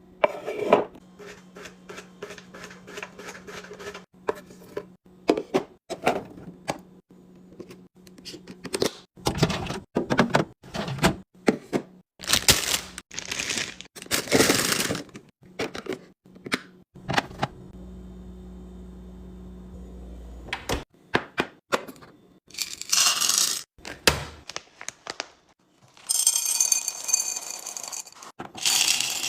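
Hard items and containers being handled and set down while restocking a refrigerator: an irregular run of clicks, knocks and short scrapes, with a steady low hum twice and a rustle near the end.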